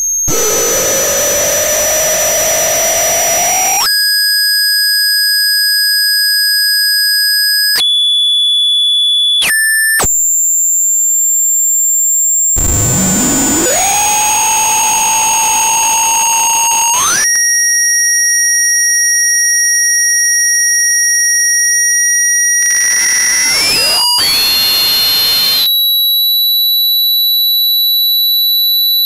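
Audio output of an NE555 timer wired as a chaotic signal generator, with one pin connected the wrong way in an astable multivibrator. Pure electronic tones with overtones hold steady, then jump or slide to new pitches, splitting into other frequencies. They are broken three times by stretches of harsh noisy buzz.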